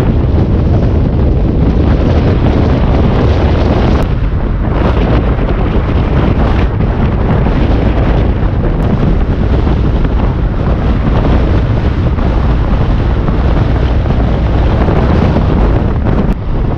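Loud wind buffeting the microphone: a steady, heavy rushing noise, strongest in the bass.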